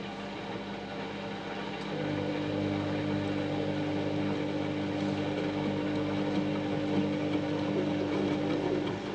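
Washing machine running, its motor giving a steady hum; about two seconds in it shifts to a louder, higher hum, which drops away near the end.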